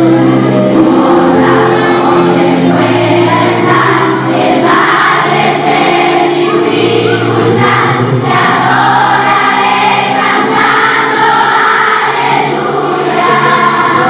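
A children's choir singing a Christmas cantata song, many voices holding long notes together.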